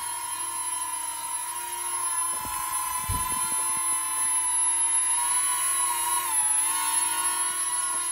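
Toy Millennium Falcon quadcopter drone hovering, its small propeller motors giving a steady high whine whose pitch sags briefly after about six seconds as it shifts in the air. A dull low thump about three seconds in.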